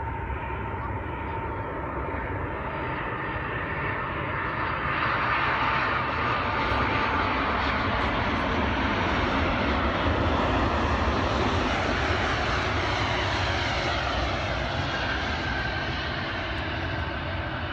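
Airliner's engines passing close by, a wide rushing roar with a faint whine that swells to its loudest about halfway through and then slowly eases.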